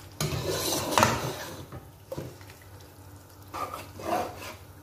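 A spoon stirring and scraping beef and yogurt masala around a cooking pot, with a sharp knock of the spoon against the pot about a second in and a few lighter scrapes near the end.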